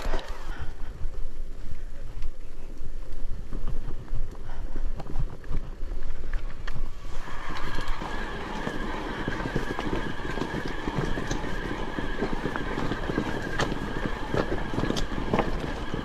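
E-mountain bike ridden over a rough trail: tyre rumble with many small knocks and rattles, and wind buffeting the microphone. From about seven seconds in, a steady high whine joins.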